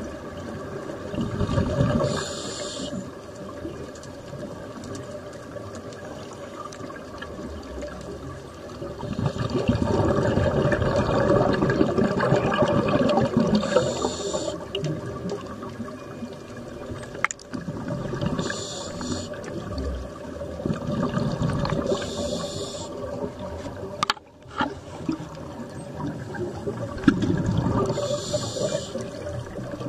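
Underwater water noise heard through a submerged camera: a muffled rushing that swells and fades in several surges, loudest in the middle, over a faint steady hum.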